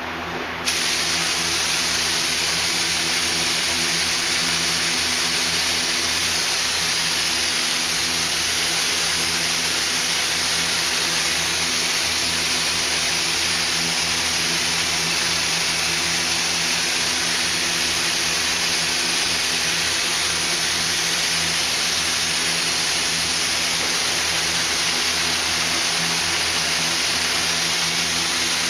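Compressed air hissing steadily from a painter's air gun, switching on suddenly about a second in and running on without a break, over a steady low hum.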